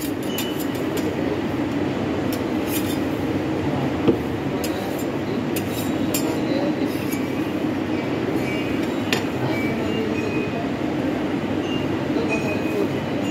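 Steady low rumble of background noise with scattered sharp metallic clinks and clicks of steel spatulas on a steel cold plate, one louder knock about four seconds in.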